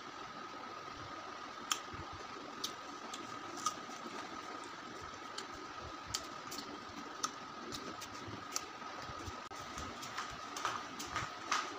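A person eating hog plums dipped in salt and chilli: scattered short clicks and mouth smacks of biting and chewing, coming faster near the end. Under them runs a steady, faint high whine.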